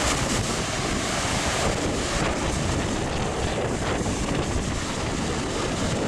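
Storm surf on the Baltic Sea: waves breaking and washing up a sandy, stony beach in a continuous wash, with strong wind buffeting the microphone.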